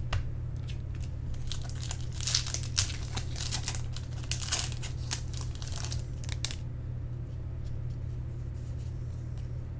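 A baseball card pack wrapper being torn open and crumpled: a rapid run of crinkles for about six seconds that stops, leaving a steady low hum.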